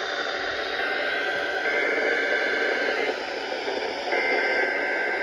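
NOAA Weather Radio SAME header for a Required Weekly Test: bursts of two-tone digital data (about 1560 and 2080 Hz) over static-laden radio reception, with a pause of about a second near the middle.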